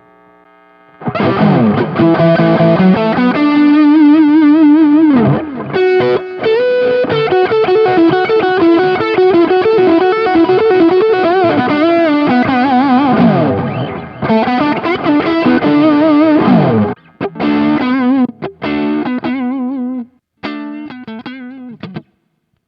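Distorted electric guitar, a 1990s Giannini Stratosonic, playing a lead line with wavering vibrato through a Sonicake Sonic IR cabinet-simulation pedal, heard direct from the line. It starts about a second in, breaks into short phrases near the end and stops just before the end.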